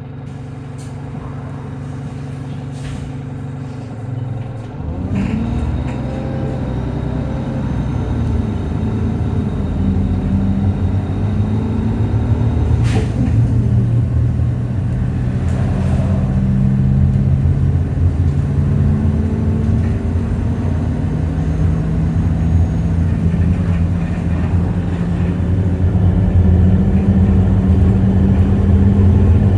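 Alexander Dennis Enviro200 bus engine running, making sounds the uploader calls weird. The sound changes about four and a half seconds in, then grows gradually louder. There is one sharp click about thirteen seconds in.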